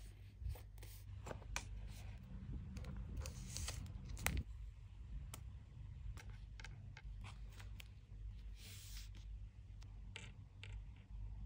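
Paper being handled on a notebook page: scattered clicks, taps and brief rustles as decorative paper strips are laid and pressed down, with one sharper click a little past four seconds in.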